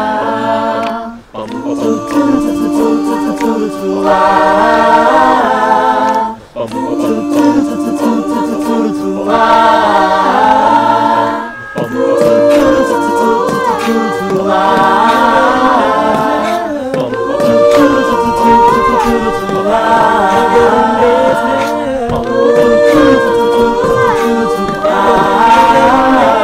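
An a cappella vocal group singing in harmony, several voices moving together without instruments, with short breaks between phrases about a second in, about six seconds in and about eleven seconds in.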